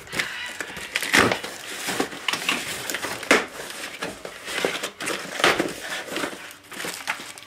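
Cardboard shipping box and its packing being handled: flaps and inner boxes rustling and scraping as hands rummage inside, with several sharper cardboard scrapes and knocks.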